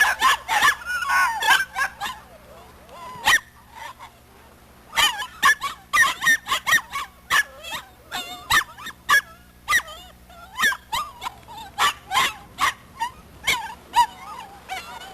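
A crowd of puppies yipping and whining, many short high calls overlapping. There is a lull of a couple of seconds about a third of the way in, with a single call, before the yipping picks up again.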